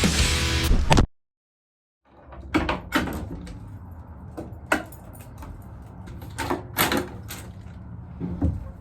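Heavy-metal music that cuts off abruptly, then a second of silence. After that, scattered sharp clicks and knocks, several of them in quick pairs, sound over a low steady hum.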